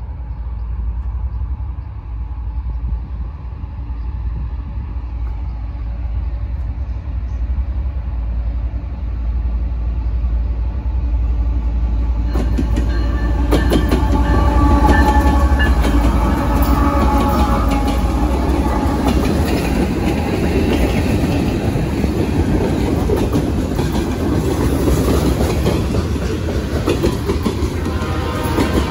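CN freight train passing close by. The diesel locomotives' low rumble grows as they approach, and about twelve seconds in the lead units go by with a sudden rush of engine and wheel noise. The covered hopper cars then roll past with steady wheel noise and repeated clicking of wheels over the rail joints.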